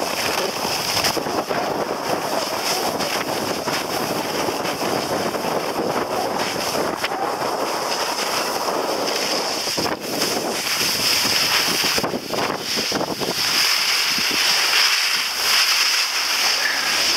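Wind rushing over the microphone and skis hissing over packed snow during a downhill run. Near the end the deeper rumble drops away, leaving a higher hiss as the skier slows at the lift.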